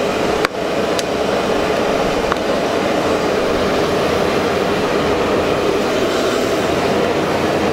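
High-pressure gas wok burners under deep-frying woks of oil, a loud steady jet-engine-like roar of flame. A sharp click sounds about half a second in.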